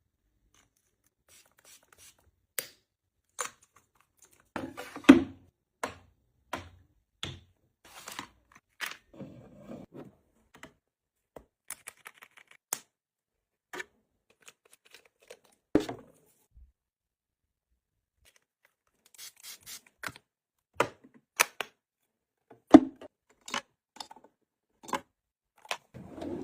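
Small objects and packaging being handled: a string of separate taps, clicks and short rustles with quiet pauses between them.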